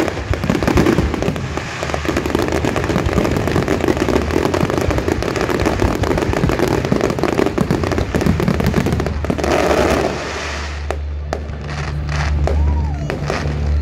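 Fireworks display's closing barrage: many aerial shells and crackle effects bursting in rapid, overlapping succession, a dense continuous crackling with bangs. About ten seconds in it thins out to a few scattered pops over a low steady hum.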